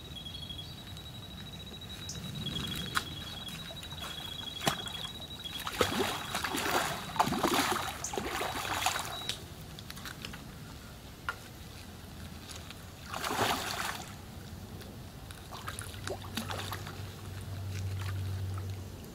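A hooked carp splashing and thrashing at the surface close to the bank while being played in, in bursts about six seconds in and again around thirteen seconds.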